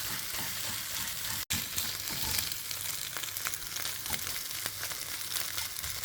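Eggs sizzling in a hot frying pan while being broken up and stirred for scrambled eggs: a steady frying hiss with scattered small scrapes and taps. The sound drops out for an instant about a second and a half in.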